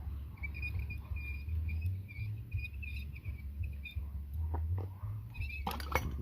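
Motorcycle front fork being worked apart: a high squeak in short broken stretches for about three and a half seconds as the tubes are pulled against the seal, then a quick cluster of metal clicks and clanks near the end.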